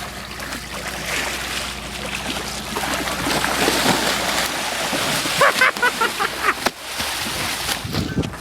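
Water splashing and sloshing at the side of a shrimp boat over the steady low drone of the boat's engine, with a run of short sharp sounds a little after five seconds in.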